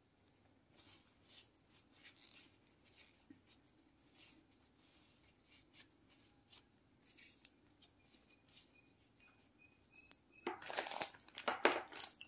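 Paper tissues handled and crumpled between the hands: soft scattered rustles, then a louder stretch of crinkling and tearing near the end.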